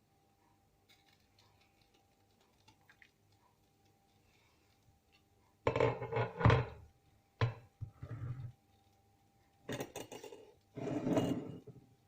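Kitchen pots and utensils being handled: several short clattering knocks in the second half, after a few seconds of near quiet.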